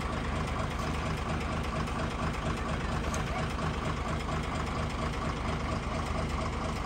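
A bus's diesel engine idling steadily, a low even hum that does not rise or fall.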